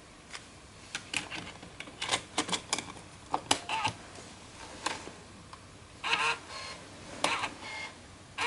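Plastic clicks and snaps as a DAT cassette is handled and pushed into a Sony DAT Walkman and its lid pressed shut, followed by short buzzing whirs of the deck's tape-loading mechanism near the end.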